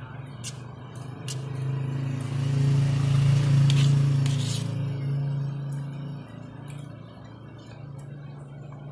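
A motor vehicle's engine going by outside, a steady low hum that swells to its loudest about three to four seconds in and then fades. A metal spoon clinks against a plate several times.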